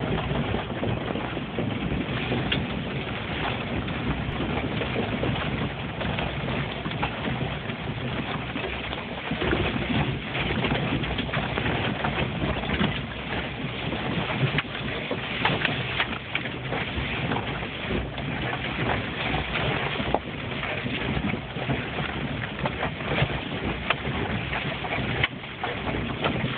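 Off-road vehicle driving on a rough trail: a steady engine-and-tyre rumble with many small knocks and rattles throughout.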